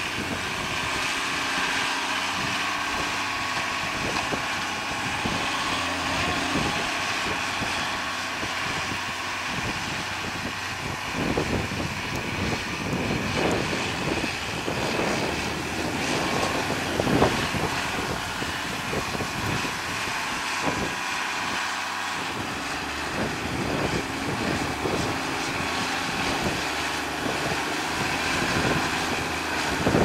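Tractor diesel engine running steadily under load while pulling a reversible mouldboard plough through the soil. Wind buffets the microphone through the middle stretch.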